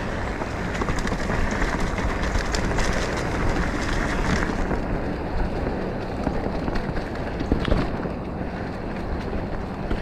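Mountain bike riding a dirt singletrack trail: steady tyre and wind noise on the microphone, with frequent rattles and knocks as the bike goes over bumps. The hiss thins somewhat about halfway through.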